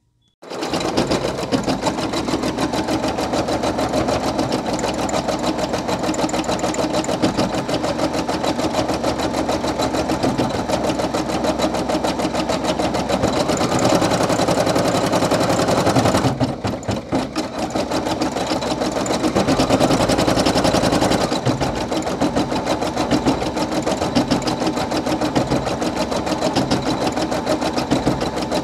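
Brother PE800 embroidery machine stitching a design, its needle running in a fast, steady, even rhythm. There is a short lull a little past halfway before it picks up again.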